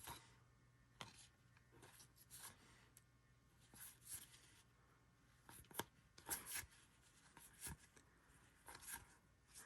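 Faint, scattered slides and clicks of trading cards being handled and flipped through one by one.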